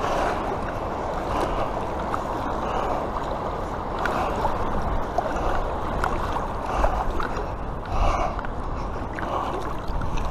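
A hooked sea trout splashing and swirling at the surface of a shallow river, over a steady rush of flowing water.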